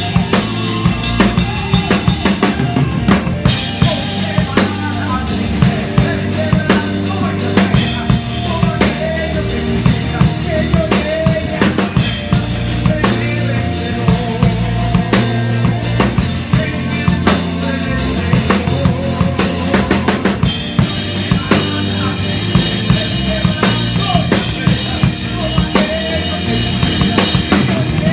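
A live band playing a song, with the drum kit the loudest part: kick, snare and rimshots on a steady beat, and cymbals growing brighter about two-thirds of the way through. Under it run an electric bass, an electric guitar and a keyboard, and a man sings into a microphone.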